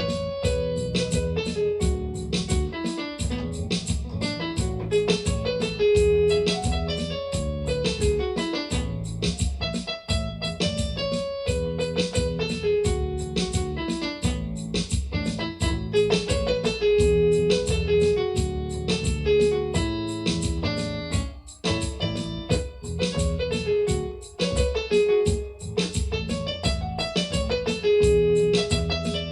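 Electronic keyboard playing a melody that runs up and down in steps over sustained chords and bass, with a steady rhythm underneath.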